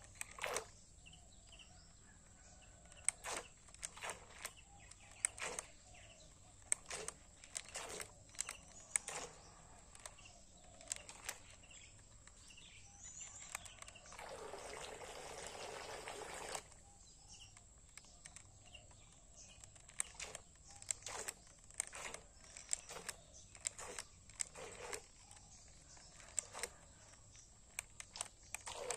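Quiet outdoor ambience with frequent irregular sharp clicks and crackles over a faint steady high-pitched whine. A patch of hiss lasts about two seconds midway.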